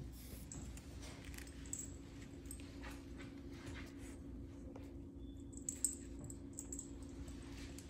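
Dogs moving about: faint jingling of a collar tag and small scattered clicks, with one sharper click a little before six seconds, over a steady low hum.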